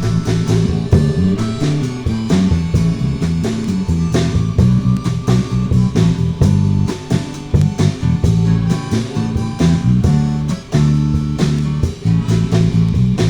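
Blues-rock band playing an instrumental passage with no singing: guitar over bass and a steady drum-kit beat.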